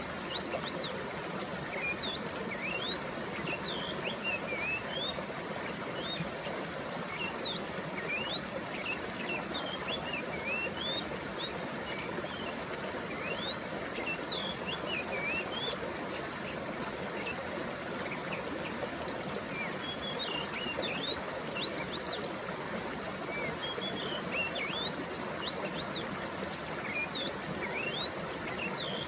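Water flowing steadily, with small birds chirping over it in many short, quick sweeping notes throughout.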